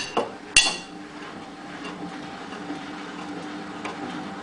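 Hotpoint WT960 washing machine's door lock mechanism clicking: a couple of sharp metallic clicks with a brief ring in the first second, then a few faint ticks over a low steady hum.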